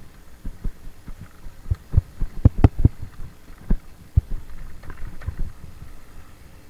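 Scott Spark mountain bike jolting over bumps on a dirt trail: a run of irregular low thuds and knocks, heaviest about two and a half seconds in, easing off near the end.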